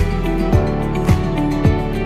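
Background music with a steady beat, a low thump about twice a second under sustained tones.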